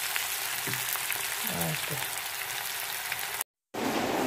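Chili paste sizzling as it fries in hot oil in a pan, stirred with a wooden spatula. It cuts off about three and a half seconds in, and after a brief silence music starts.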